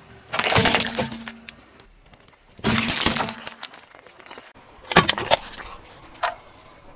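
Hard plastic objects cracking and crunching as a car tyre rolls over them. There are three separate bursts, the last made of sharp snaps about five seconds in, and a small crack follows it.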